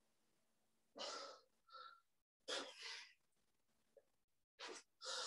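A person breathing hard from exertion during sit-ups: about five short, faint, hissy exhales.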